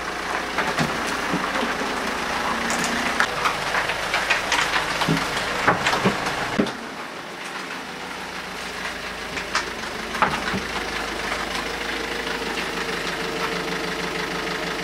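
An engine running steadily, with irregular clicks and knocks over its first seven seconds or so.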